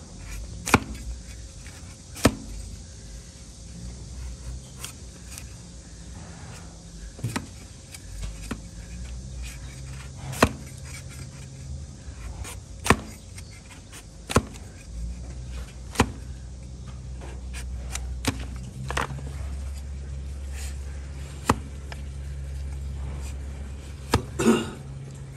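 Overgrown donkey hoof being trimmed: sharp cracks as a cutting blade slices through thick hoof horn, one every one to three seconds, over a low steady hum.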